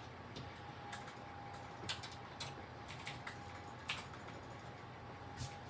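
Faint, irregular light clicks and taps of pencil-and-eraser work on paper laid over a desk, about one every half second to a second. A faint steady tone runs underneath.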